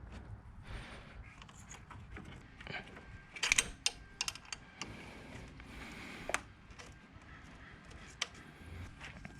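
Stock shifter cable end joints being pried off the transmission shift-lever ball studs: a series of sharp plastic clicks and snaps with handling noise between them, the loudest cluster a few seconds in.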